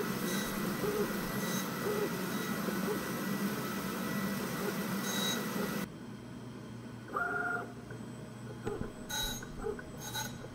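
Surface grinder wheel grinding across the face of a metal part on the magnetic chuck, a steady grinding hiss that swells briefly now and then as the table traverses. It cuts off abruptly about six seconds in, leaving quieter shop sound with a short tone and a few light clicks.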